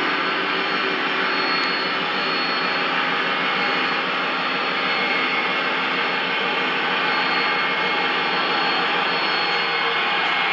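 O scale model train running steadily on its track, a continuous whirring of wheels and motor with a faint high whine laid over it.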